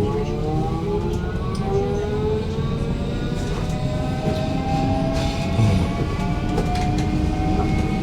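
Electric U-Bahn train's motors whining in several tones that rise together in pitch as it gathers speed, levelling off about five seconds in, over a steady low rumble.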